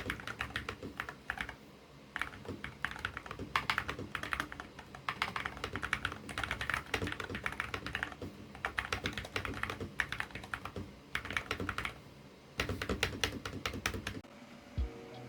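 Fast typing on a gaming keyboard: quick runs of key clicks in bursts with short pauses, stopping about a second before the end.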